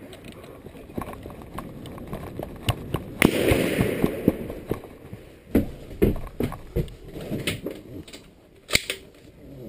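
A rifle shot about three seconds in, a sharp crack with a long echoing tail, amid smaller clicks and knocks of rifle and gear handling.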